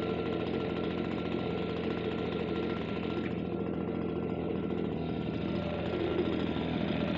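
Small two-stroke engine of a Stihl BG56 leaf blower idling steadily.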